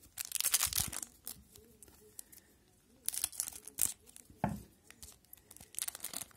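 Wrapper of a 2001/02 Pacific Adrenaline hockey card pack crinkling and being snipped open with scissors. It comes in several short bursts, the longest in the first second.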